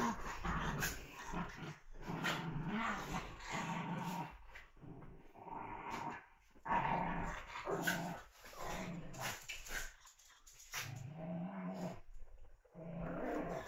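Small dogs growling in play as they wrestle, a run of short growls with brief pauses and one longer growl near the end.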